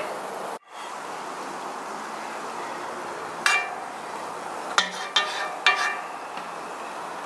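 A steel skimmer clinks against a cast-iron cauldron four times in the second half as peppers are turned in the pot, over the steady bubbling of the marinade at a hard boil.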